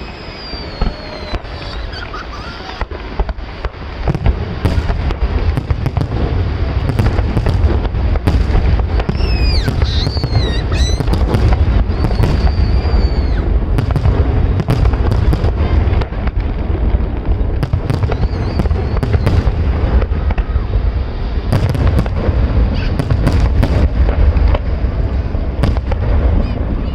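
Fireworks display: many sharp bangs and crackles that build about four seconds in into a dense, continuous barrage of explosions, with a few whistling glides near the middle.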